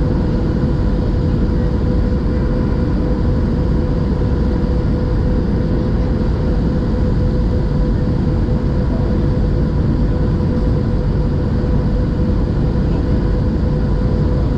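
Steady cabin noise inside a Boeing 737-700 airliner: its CFM56 jet engines and the airflow make an even, heavy rumble with a constant whine above it.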